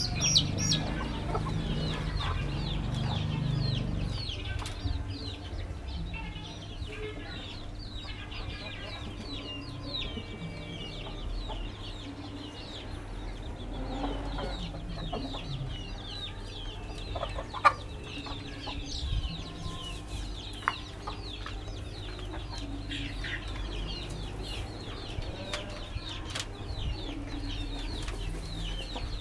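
Chickens clucking, over a constant high chirping and a low steady hum, with a sharp tap about two-thirds of the way through.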